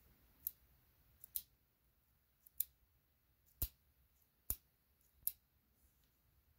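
The leaf shutter of an Argus C3 camera, out of the camera body, being fired by hand: six sharp clicks about a second apart, a few with a softer click just before.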